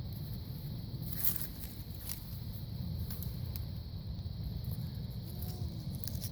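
Steady wind rumble on the microphone, with a few light rustles and clicks.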